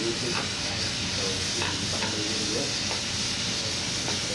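Steam cleaner nozzle hissing steadily as it blasts hot steam along an aluminium door threshold.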